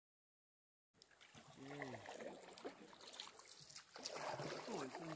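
A canoe being paddled, with water trickling and splashing, a few light knocks, and people's voices talking low. It starts suddenly about a second in, after silence.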